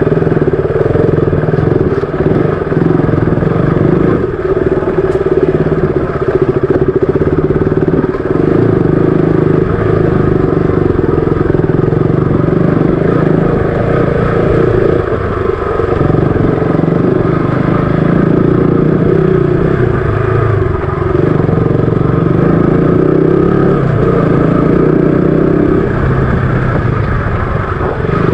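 KTM RC 200's single-cylinder engine running as the bike is ridden, its note rising and dipping with the throttle.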